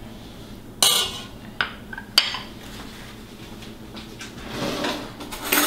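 Metal serving spoon clinking and scraping against a stainless steel pot and a small plate as stew is dished out: a few sharp clinks in the first two seconds or so, then a scraping stretch and another clink near the end.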